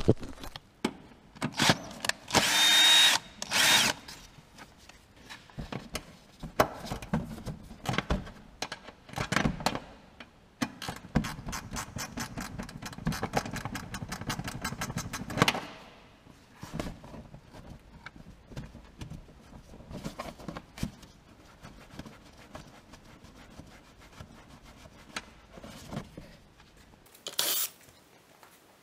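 Cordless drill-driver backing out the screws of a car's plastic wheel-arch liner in short runs of the motor. A loud run comes about two seconds in, and a longer one with fast even clicking about ten seconds in, among scattered knocks and rattles of the plastic liner being handled.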